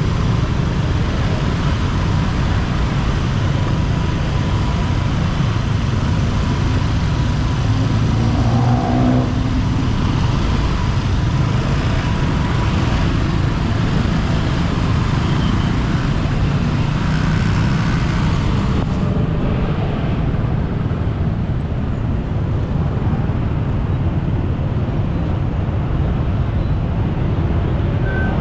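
Steady road-traffic noise from the back of a moving motorbike taxi in dense traffic: motorcycle and car engines and tyre noise, mostly low in pitch.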